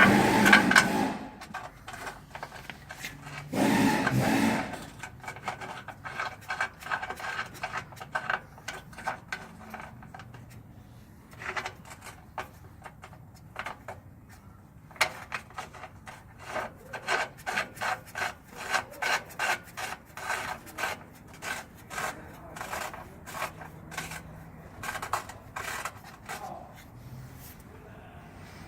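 Ratchet wrench worked in quick back-and-forth strokes, its clicks coming in runs of a few a second, mixed with metal tools rubbing and scraping. This is the work of taking an old knock sensor off the truck's engine.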